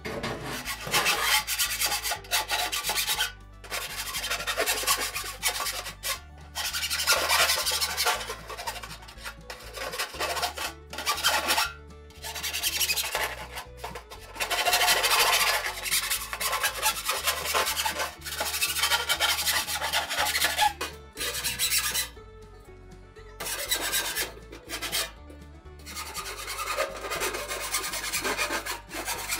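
Hand file rasping along the cut sheet-metal edge of a steel drum, deburring the sharp edges after grinder cutting. The strokes come in runs of a few seconds with short pauses between them.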